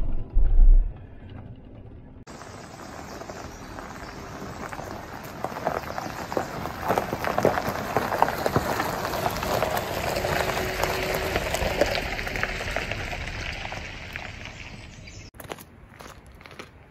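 Vehicle tyres crunching slowly over a gravel road: a dense crackle of small stones that swells in the middle and fades, then cuts off suddenly.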